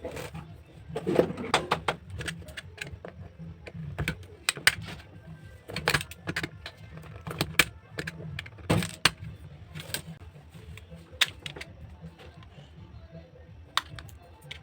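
Irregular clicks and light knocks of small objects being handled, several a second at first and sparser near the end, over a low steady hum.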